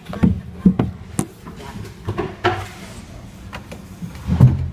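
Irregular knocks and bumps on the hard plastic body of a coin-operated kiddie swing boat ride as a child climbs back aboard, with a heavier thump near the end.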